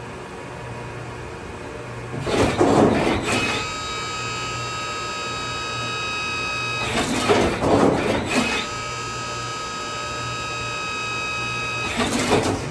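Brother Speedio R650x1 CNC drilling and tapping center running: a steady high whine of several tones, broken by loud rushing bursts about every five seconds, three in all.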